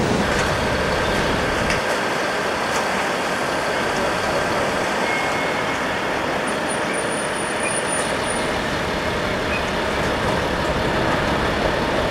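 Crane truck's diesel engine running steadily, with a few faint clicks over it.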